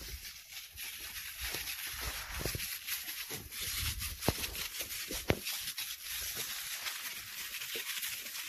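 Rustling and scuffing of footsteps through leafy crop plants and weeds, over a steady hiss, with two sharp clicks about four and five seconds in.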